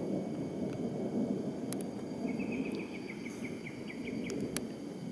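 Low steady rumble of a thunderstorm. Partway through, a bird calls a quick run of about a dozen short repeated notes, and there are a few sharp clicks.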